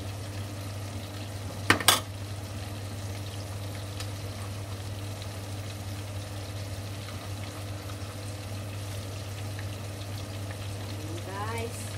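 Stir-fried egg noodles with cabbage and peppers sizzling in a non-stick frying pan as they are tossed with a spatula and tongs. A sharp clatter of a utensil against the pan comes about two seconds in, over a steady low hum.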